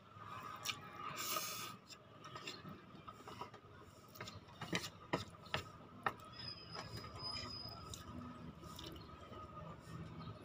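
Slurping in a mouthful of instant noodles, then chewing, with a few sharp clicks of wooden chopsticks against the plate around the middle. A faint steady hum runs underneath.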